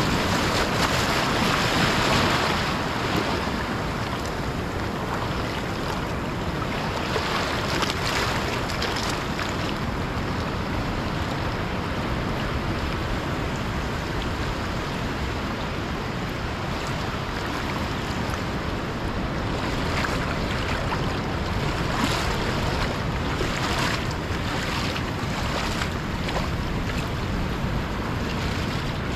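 Ocean surf washing up over the wet sand in a steady rush, loudest in the first few seconds, with wind rumbling on the microphone.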